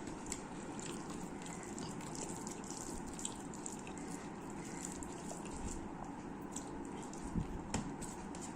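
Close-up eating sounds: a person chewing food, with many small wet mouth clicks over a steady background hiss and a couple of louder knocks near the end.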